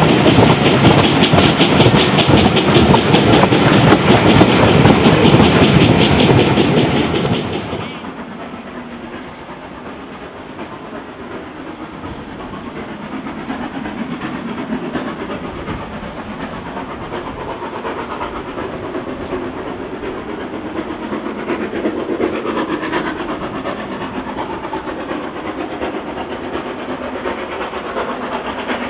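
A train of railway coaches running past close by, wheels clicking over the rail joints. About eight seconds in the sound cuts to a quieter steam locomotive working in the distance, getting gradually louder as it approaches.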